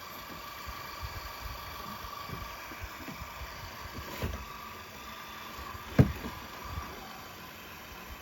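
A battery-powered 12-volt electric car jack's motor whines steadily as it lowers the jack, then fades out about seven seconds in. A sharp knock about six seconds in is the loudest sound, with lighter knocks around it.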